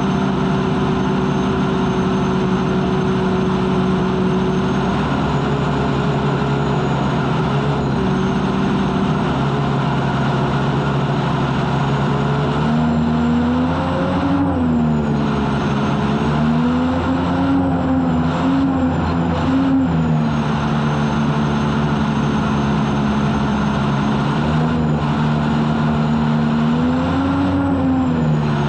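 Unlimited hydroplane's Lycoming T55 turbine engine running loud, heard onboard, with a thin high whine over a dense rushing noise. Its pitch holds steady at first, then rises and falls several times from about halfway through.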